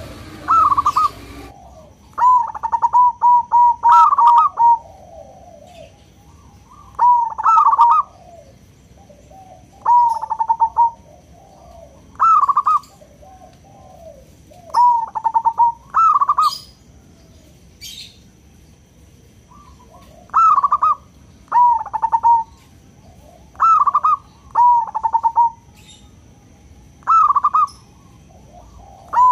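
Zebra dove (perkutut) cooing: short phrases of rapid, stuttering notes, repeated about a dozen times at intervals of a couple of seconds.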